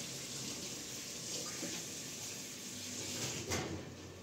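Water running steadily from a tap, easing off near the end, with a single knock about three and a half seconds in.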